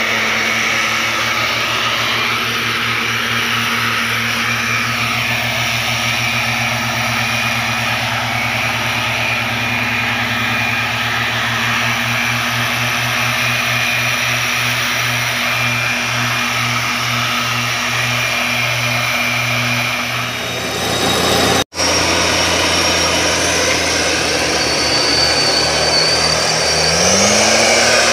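Backpack mist blowers' small two-stroke engines running steadily, their tones pulsing slowly against each other, with the rush of the fans' air. The sound breaks off briefly about three-quarters through, then resumes, and near the end an engine revs up.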